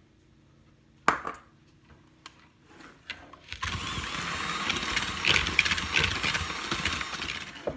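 A sharp crack and knock a little after a second in, an egg being cracked into the bowl, then an electric mixer runs steadily for about four seconds, beating the egg into creamed butter and sugar, and stops just before the end.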